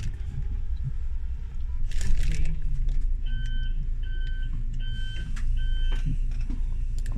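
Coach bus engine and road rumble heard from inside the passenger cabin, with a brief rustle about two seconds in and then four evenly spaced electronic warning beeps past the middle.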